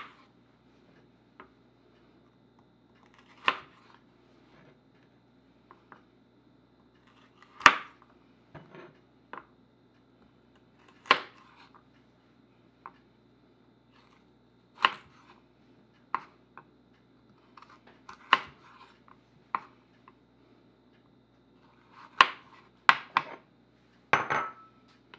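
Chef's knife julienning carrots on a wooden cutting board: irregular sharp knocks of the blade striking the board, one to a few seconds apart, with several close together near the end.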